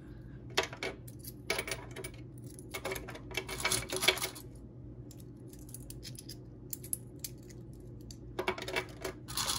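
Quarters clinking together in the hand and clicking into the slots of a plastic coin-counting tray, in several short clusters of clicks with pauses between. A steady low hum runs underneath.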